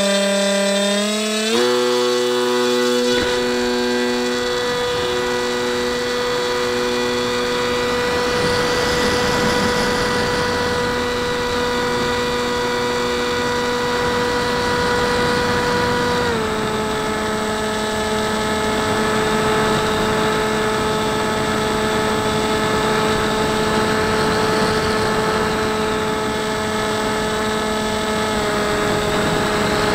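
Turnigy L2210-1400 brushless electric motor spinning an Airscrew 6x4 propeller on a Dynam Hawk Sky RC plane, heard up close from the plane's onboard camera: a steady high whine that climbs in pitch in the first second or two, then runs steady with wind rushing over the camera in flight. About halfway through, the whine drops a step in pitch and holds there.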